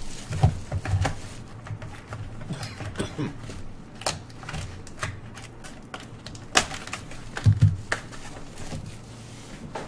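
Irregular clicks, taps and light rustling of a trading card box and its packaging being opened and the cards handled, with a few dull thumps about half a second in, about a second in and near the three-quarter mark.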